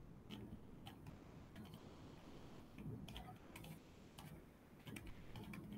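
About a dozen faint, irregularly spaced clicks from a computer's controls as pages of a document are skipped through, over quiet room tone.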